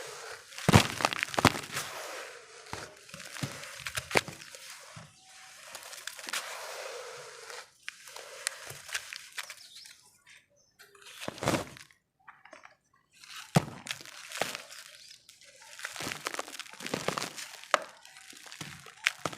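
Lumps of red dirt crumbling and breaking apart in a run of irregular sharp cracks and gritty crunches, with a couple of short pauses midway.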